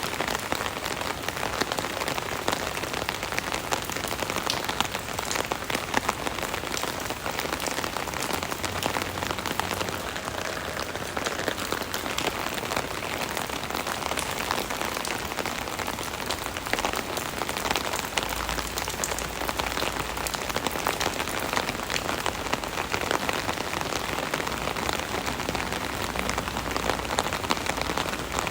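Steady rain falling on an umbrella: a dense patter of drops hitting the taut canopy, many tiny taps over a continuous hiss.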